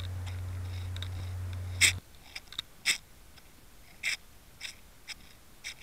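Background of a voice-over recording: a steady low hum that cuts off about two seconds in. After it comes a quieter stretch with a few scattered sharp clicks and breath-like mouth noises.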